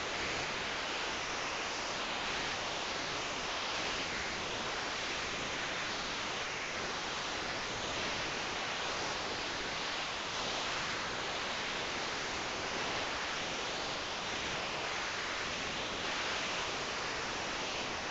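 Steady, even hiss with no clear rhythm of breaths.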